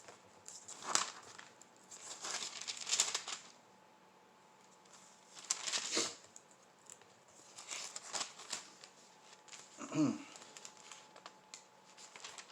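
Paper pages being leafed through and rustled in several short bursts, as someone searches for a scripture passage. About ten seconds in comes a brief low hum from the reader.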